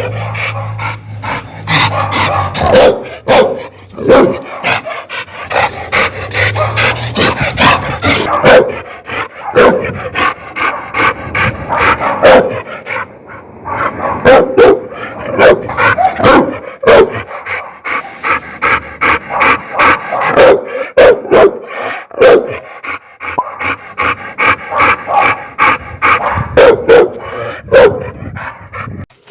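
Dogs barking loudly and repeatedly in quick succession, several barks a second at times, with barely a pause.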